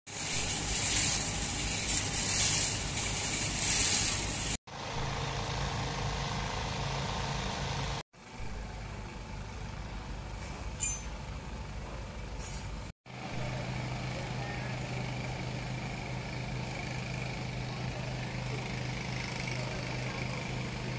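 Construction-site machinery noise: an engine running with a steady low hum, broken by three brief cuts. A loud rushing hiss that pulses about once a second fills the first few seconds.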